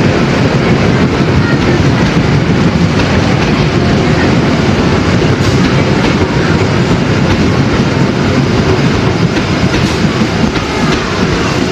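A train running along the track, a loud steady rumble with occasional wheel clicks.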